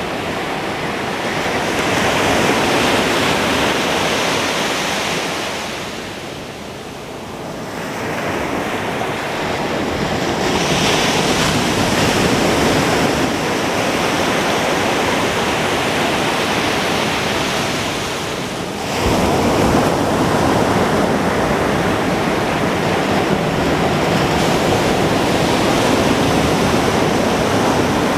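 Ocean waves breaking on a beach, the surf washing in and out in swells, with a sharp rise as a wave crashes about two-thirds of the way through. Some wind buffets the microphone.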